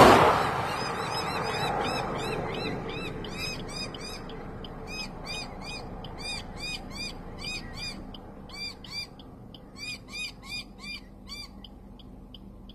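A bird calling in a fast run of short, repeated, arched notes, about three a second, which thin out and fade near the end. A loud rushing noise dies away in the first second.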